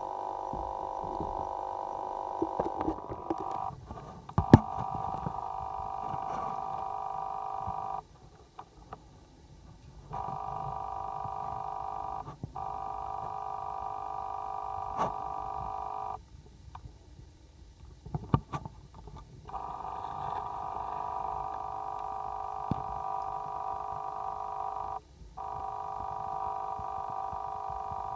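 Water running into a bathtub, with a steady whine from the tap. The whine cuts out and comes back several times, and a few sharp knocks fall in between.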